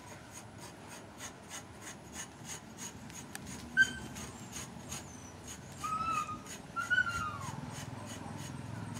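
A rod rubbed up and down a freshly cut cinnamon branch, giving an even rasping of about three strokes a second; this loosens the bark before peeling. A few short whining calls from an animal come about 4 and 6–7 seconds in.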